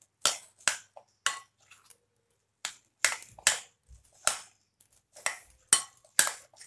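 Metal spoon mixing gram-flour batter in a glass bowl: short scraping, clinking strokes against the glass, about ten of them at an uneven pace, as dry flour and water are worked into a thick batter.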